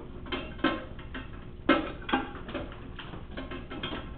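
Leather draw-down strap being unfastened and pulled off a saddle seat: a run of irregular clicks and knocks, with a few louder knocks in the first two seconds or so.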